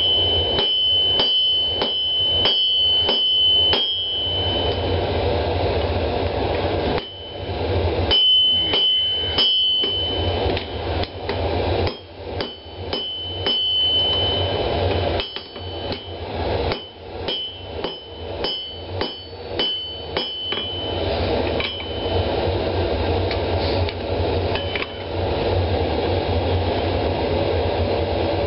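Hand hammer forging a red-hot tomahawk blank on an anvil: runs of blows about two a second, each with a bright metallic ring, broken by pauses of a few seconds, with fewer blows near the end. A steady low rushing noise runs underneath.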